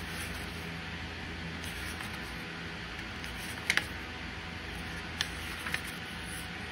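Steady hiss with a low hum, broken by a few short clicks: a quick double click a little before four seconds in and two more about a second later.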